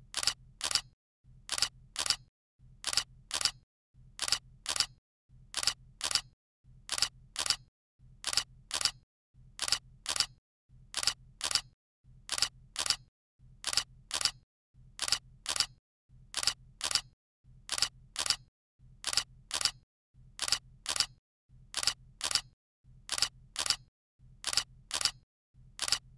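Looped camera-shutter sound effect: a burst of three quick shutter clicks repeating about every 1.3 seconds, each burst over a short low hum.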